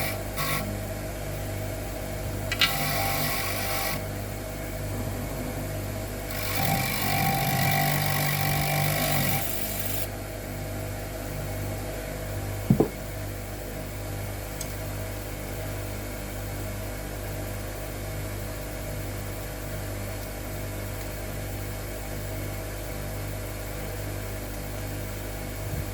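Clarke bench grinder running with a steady motor hum, and twice something is held to the wheel: a short grinding spell about two and a half seconds in and a longer one of about three seconds starting near six and a half seconds. A single sharp knock comes near the middle.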